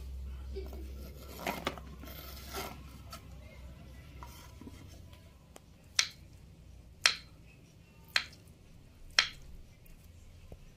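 Kitchen knife chopping through soft, overripe tempe on a wooden cutting board. The blade knocks sharply on the board four times, about a second apart, in the second half. Before that come quieter scraping and handling sounds.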